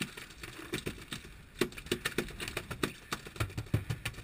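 Small bluefin tuna thrashing on the boat's fibreglass deck: a run of irregular knocks and slaps, about three or four a second, with heavier thumps near the end.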